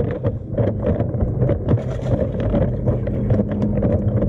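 Water splashing and sloshing as fish are lifted out of a bass boat's live well into a plastic weigh bag, with many short splashes and knocks over a steady low machine hum.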